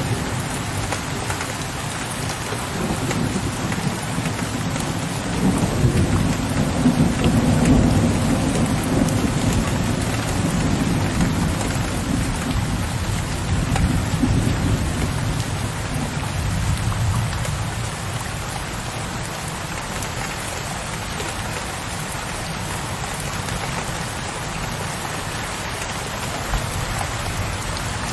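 Steady rain falling with low rolling thunder. The rumble swells twice, about five and about thirteen seconds in, then fades, leaving mostly the rain near the end.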